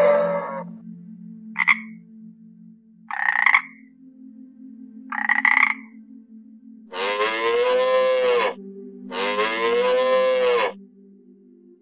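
A frog croaking three short times, about a second and a half apart, then a cow mooing twice in long, drawn-out calls.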